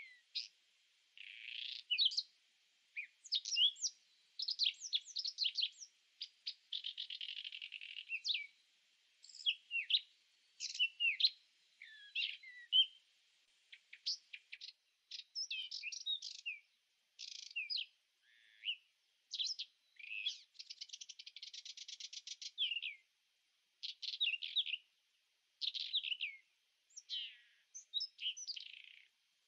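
Small birds chirping and singing: a busy run of short, high chirps and trills one after another, with a fast buzzing trill about two-thirds of the way through.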